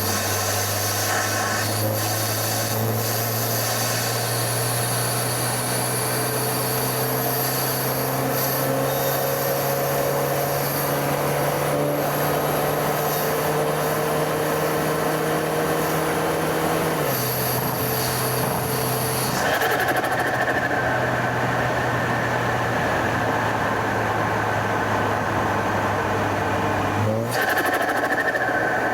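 BMW F30 328i's turbocharged N20 four-cylinder, fitted with an aftermarket open intake, running at a steady cruise: a constant engine drone with road noise. The drone steps down in pitch about two-thirds of the way through, and the engine pitch briefly rises near the end.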